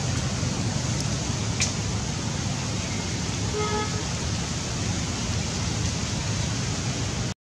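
Steady outdoor background noise, a low rumble under a hiss like wind and distant traffic, with a faint short tone in the middle; the sound cuts out abruptly near the end.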